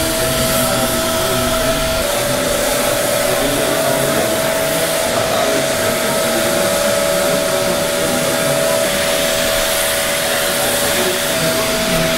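Spray-tan machine's turbine blower running steadily as the hose-fed spray gun mists tanning solution, an even rushing air noise with a steady whine. A second, slightly lower whine joins about two seconds in and drops out near the end.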